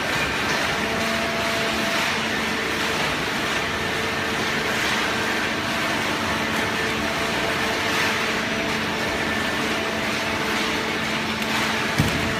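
Fully automatic vertical cardboard baler running: a steady mechanical hum with several held tones, with a single knock near the end.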